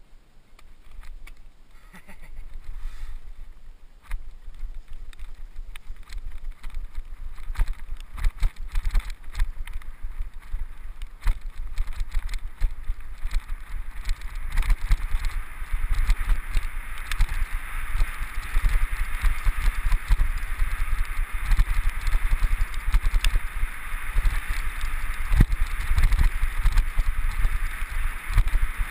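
Mountain bike rolling downhill over a bumpy grass trail: tyres swishing through the grass while the bike knocks and rattles over the bumps. Wind rumbles on the microphone, and the hiss grows louder from about halfway as the speed builds.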